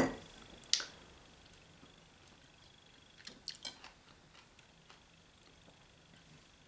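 Quiet eating sounds: a sharp click at the start and another about a second in, then a short run of soft, wet chewing clicks a few seconds in.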